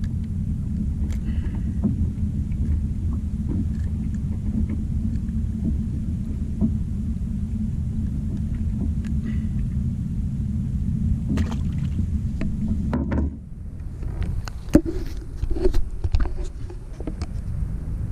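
Steady low rumble of wind and water noise on the microphone aboard a fishing kayak, cutting off abruptly near the end. Scattered knocks and clatter follow.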